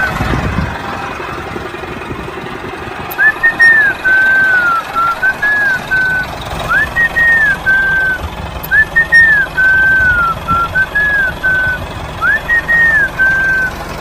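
A whistled tune: short phrases of rising, falling and held notes that repeat, starting about three seconds in, over a low steady rumble.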